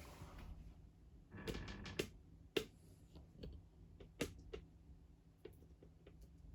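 1978 SMC 60F ceiling fan running on low speed: a faint, steady low motor hum, with scattered irregular clicks and ticks.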